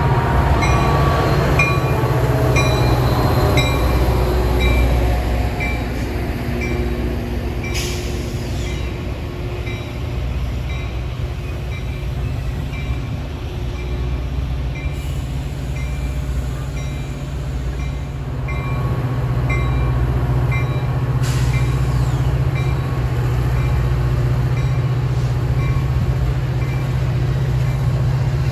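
A train running through the station with a steady low rumble. Falling tones sound in the first few seconds, and a regular bell-like ding repeats about twice a second.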